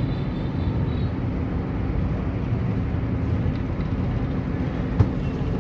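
A steady low rumble, with one sharp click near the end.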